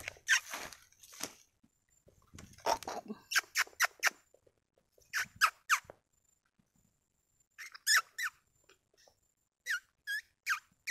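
Tonkean macaques giving short, high, squeaky calls that slide downward, in quick groups of three or four. There is a burst of rustling through leafy undergrowth at the start.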